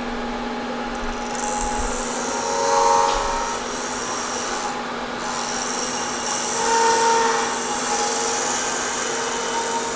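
Milling machine spindle turning a half-inch solid carbide end mill at about 1300 RPM, taking a light skim cut across a solid state drive's circuit board and chips. A steady motor hum runs under a hissing grind of the cutter, which comes in about a second in and breaks off briefly midway. The cut swells twice into a ringing tone.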